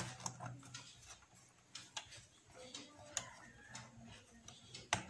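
Faint, scattered clicks and taps from hands working wires and terminal screws on a switch-and-socket board, with a sharper click near the end.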